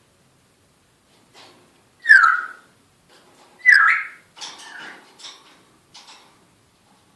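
African grey parrot whistling: two loud whistles about a second and a half apart, followed by several softer short calls.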